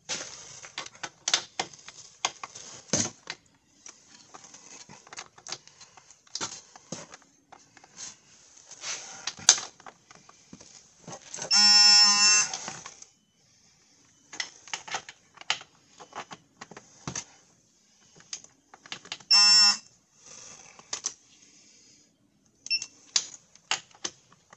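Ratchet clicking in short runs as the wheel bearing hub bolts are tightened, with a digital torque wrench giving a steady electronic beep twice, a long one of about a second near the middle and a shorter one later, signalling that the set torque (96 foot-pounds) has been reached.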